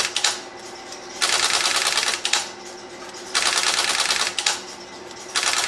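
Stromberg-Carlson XY selector switch stepping under dial pulses: bursts of rapid mechanical clicking about a second long, repeating about every two seconds. The selector is optioned to absorb the digit 9, so each dialed 9 steps it and it drops back without cutting into the bank.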